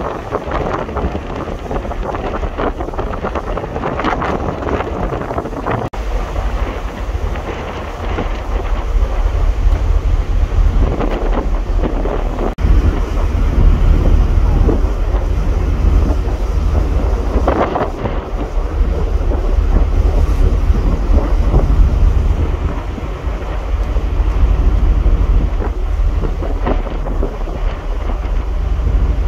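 Wind buffeting the microphone on the open deck of a moving ferry: a loud, gusty low rumble that grows heavier about six seconds in and stays strong through the middle.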